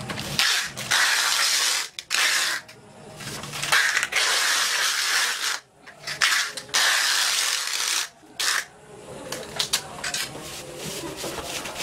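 Packing tape being pulled off its roll in several rasping pulls of about a second each, with the plastic wrapping around a long pole crinkling.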